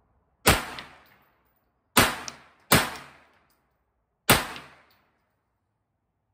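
Four shots from a Kel-Tec Sub 2000 9mm pistol-caliber carbine, fired at an uneven pace, the second and third close together. Each shot trails off in a short echo.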